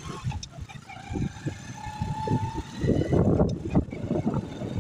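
Diesel farm tractor pulling a trolley loaded with bricks, its engine running as a low rumble that grows louder about three seconds in.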